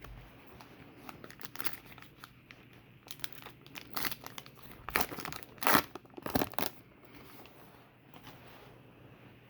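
A trading-card pack's wrapper being torn open and crinkled: a run of crackling rustles, loudest about five to seven seconds in, then dying down.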